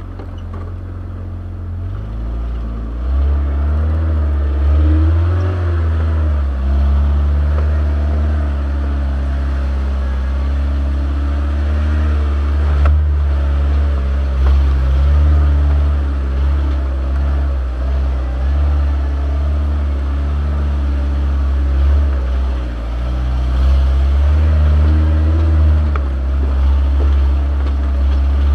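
Off-road vehicle's engine running at low speed as it crawls along a rough dirt trail: a steady low drone whose pitch wavers with the throttle, getting louder about three seconds in.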